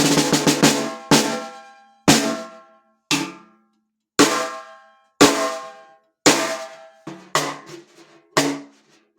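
Pearl brass-on-brass piccolo snare drum played with sticks. A quick run of strokes in the first second gives way to single strokes about once a second, each ringing out. There are a few closer hits near the end.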